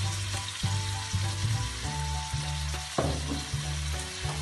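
Cherry tomatoes and olives frying in olive oil in a pan on a gas hob, a steady sizzle, under low background music.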